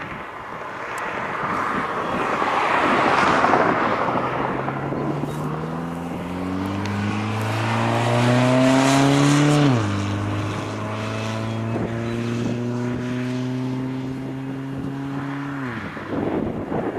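Union Pacific 844 steam locomotive's chime whistle blowing one long chord as it passes, the whole chord dropping in pitch about ten seconds in as it goes by, then cutting off. Before the whistle there is a rising rush of noise from the passing train.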